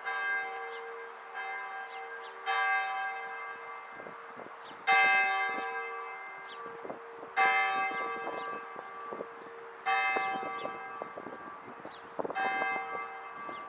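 Church bell tolling: struck strokes about every two and a half seconds, each ringing on with a slow decay.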